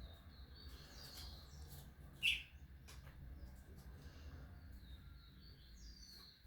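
Bird calls: short chirps and notes, with one louder, sharp call about two seconds in.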